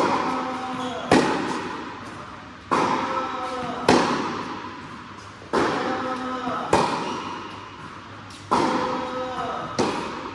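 Tennis ball strikes off a Wilson Pro Staff 97 v13 racquet, together with ball bounces on a hard court, ringing through a large hall. There are eight sharp impacts, coming in pairs about every three seconds, each with a long echoing tail.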